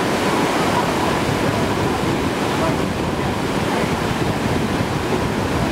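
Whitewater of the Deschutes River rushing steadily through a surfing wave, a continuous loud churning of foaming water.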